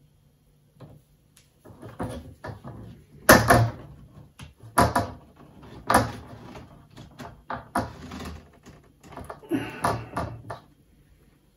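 Hollow plastic knocks and clatter as a white plastic pipe cross frame with a black junction-box hub is handled and shifted about on a wooden worktop; the loudest knock comes about three seconds in, with several more through the middle.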